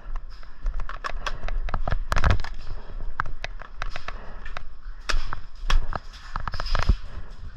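Airsoft guns firing: sharp, irregular pops and cracks, single shots and short quick clusters.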